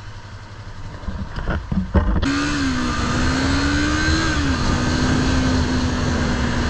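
Motorcycle engine being restarted: a few seconds of low rumble and clatter, then it catches about two seconds in, rises briefly in pitch and settles into a steady idle. This follows the engine cutting out because the kickstand was left down when the bike was put in first gear.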